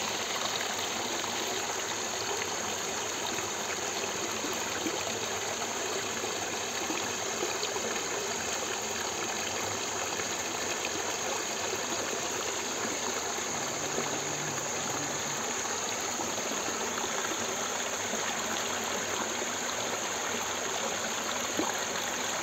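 Steady, even rush of running water, unbroken throughout.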